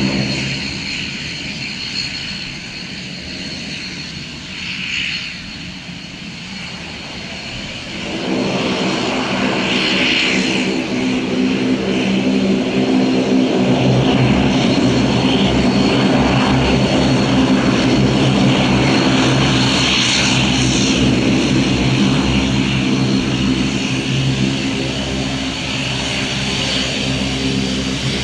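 Dash 8 Q400 turboprop airliner's twin Pratt & Whitney PW150A engines and propellers running as it taxis and turns on the runway: a steady high whine over a layered propeller drone. The drone grows louder about eight seconds in and gains a heavier low rumble from around fourteen seconds.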